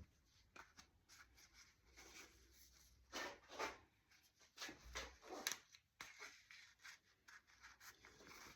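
Faint scraping and rubbing with a few light clicks, in short irregular strokes.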